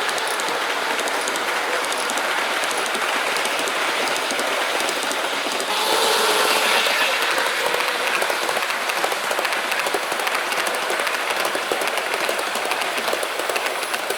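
1/45-scale OJ gauge model train, an EF64 electric locomotive with a rake of coaches, running on the track with a steady rattle and many quick clicks from metal wheels on the rails. It gets louder for a while about six seconds in.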